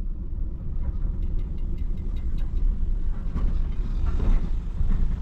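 Truck driving at road speed, heard from inside the cab: a steady low rumble of engine and tyres, with a row of faint ticks about a second in.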